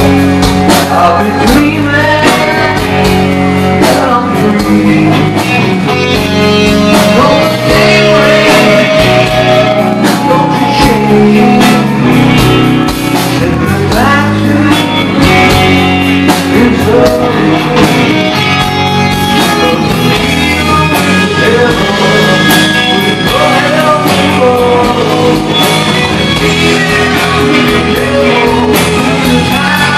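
Live rock band playing loudly: a male singer sings over electric guitar and a drum kit.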